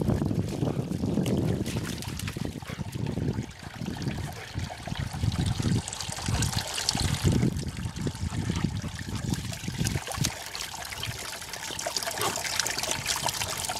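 Water trickling and splashing as a boxer dog drinks at a water-play trough and lies down in the muddy puddle beside it.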